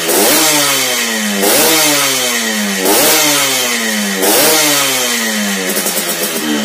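Yamaha RX-King two-stroke single-cylinder engine with an aftermarket telo-style racing exhaust, revved in four quick throttle blips about a second and a half apart. Each one rises sharply and then falls back toward idle.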